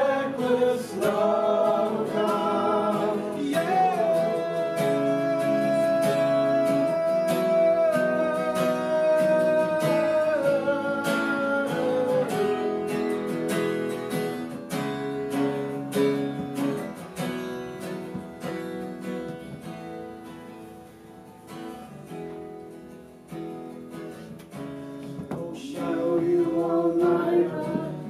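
A man singing to his own acoustic guitar, holding long notes over strummed chords. About twelve seconds in the voice drops out and the guitar plays on more quietly; the singing comes back near the end.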